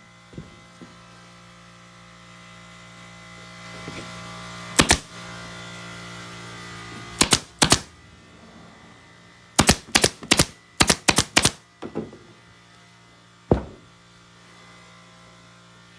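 Upholstery staple gun driving staples through fabric into a stool cushion's base, fired in quick groups of sharp shots; the longest run, about eight shots, comes about ten seconds in. A steady low hum runs underneath.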